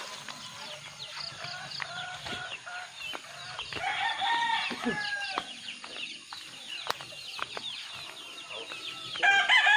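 Chickens clucking and calling. A rooster crows about four seconds in, and again, louder, just before the end.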